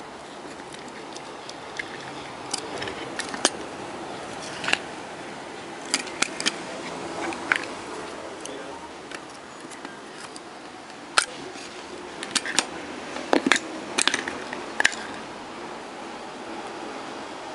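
Scattered sharp clicks and taps of small metal and plastic parts being handled at the battery contact spring inside a plastic wireless microphone handle, busiest in the second half, over a steady hiss.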